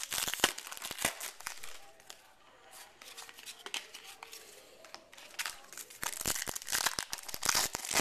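Wrapper of a baseball card pack crinkling and tearing as it is opened, with cards clicking and sliding in the hands. The crackling is busiest in the first second and a half and again over the last two and a half seconds, sparser in between.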